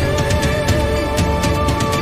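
Background music: sustained steady tones with light percussive ticks over them.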